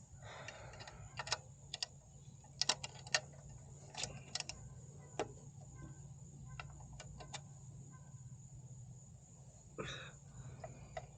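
Scattered light metallic clicks and clinks, about a dozen spread unevenly over the first seven seconds, as hand tools and the motorcycle's kickstand parts are handled, with some brief rustling and a steady low hum underneath.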